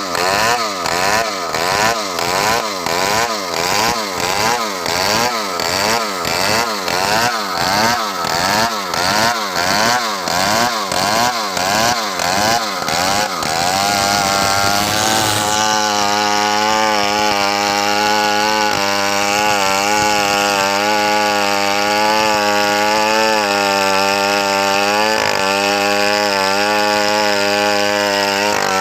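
Stihl chainsaw running under load in a large log, its engine pitch rising and falling evenly about one and a half times a second. About fourteen seconds in it settles into a steadier, continuous pitch with only slight wavering.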